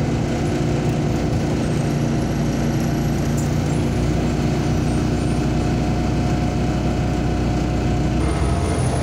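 MAZ-203 city bus engine running steadily at idle while the bus stands at a stop, heard from inside the passenger cabin.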